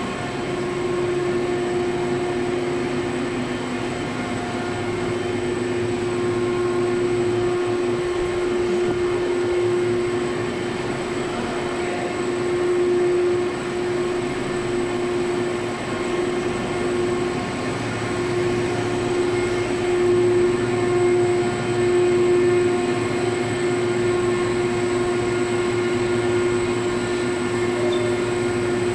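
Hot melt adhesive coating and laminating machine for label stock running: a steady mechanical hum with one strong, steady mid-pitched tone and fainter higher tones over it.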